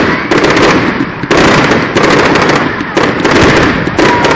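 Fireworks display: aerial shells bursting overhead in a loud, continuous string of bangs and crackle, with fresh sharp reports about a second apart.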